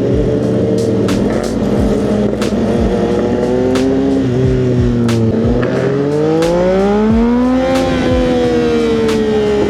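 2025 CFMoto 675SS inline-three engine with an aftermarket exhaust, under way. Its pitch holds, dips slightly about five seconds in, then climbs steadily as the bike accelerates to a peak near eight seconds and eases back down. Sharp clicks come every second or so throughout.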